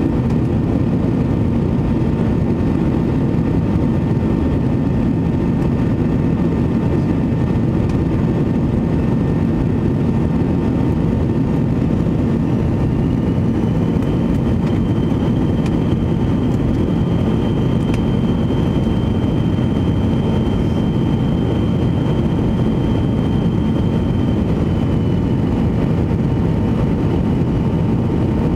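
Cabin noise inside a McDonnell Douglas MD-80-series jet airliner on approach: a steady, loud rush of airflow and engine noise with a thin whine running through it. About twelve seconds in a higher whine rises in and holds, dipping slightly in pitch near the end.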